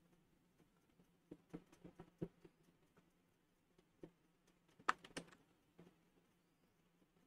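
Faint scattered clicks and taps from a digital drawing setup, a stylus tapping on a tablet and keys being pressed, with the loudest pair about five seconds in. A faint steady low hum runs underneath.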